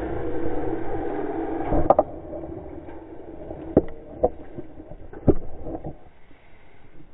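Honda CR250 two-stroke engine running on its side after the crash, cutting out with a knock about two seconds in. Several sharp knocks and scrapes follow as the bike and rider slide through dry grass, then quieter rustling.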